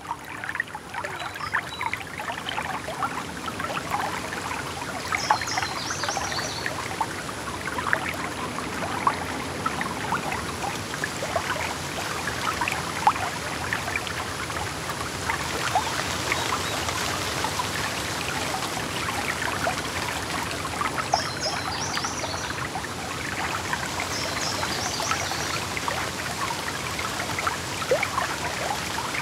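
Running water babbling steadily, like a small stream, with a few clusters of short high-pitched chirps now and then.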